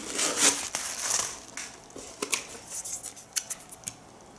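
Hands rustling packaging while handling the shoes and spare laces, followed by a few light clicks and taps.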